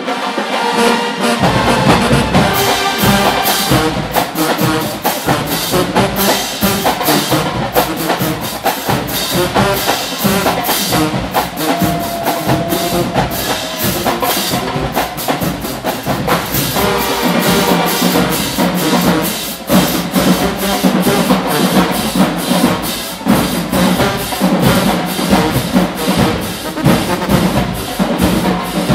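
Marching band playing: a drumline's snare drums and crash cymbals drive a fast, dense beat under brass horns. Deep low notes come in about a second and a half in.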